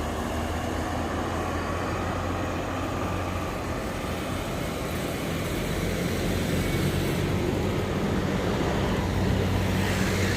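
Heavy diesel vehicles passing on the road, a steady engine drone over tyre and traffic noise. A bus engine grows louder toward the end as it comes closer.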